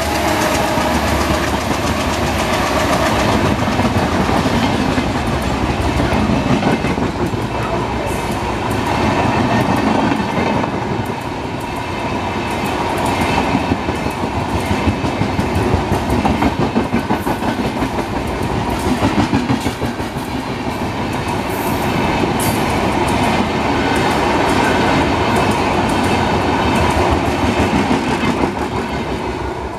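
An express train's passenger coaches pass close by at speed. The wheels make a steady rush on the rails with a rhythmic clickety-clack, and the loudness beats up and down as each coach's wheelsets go by.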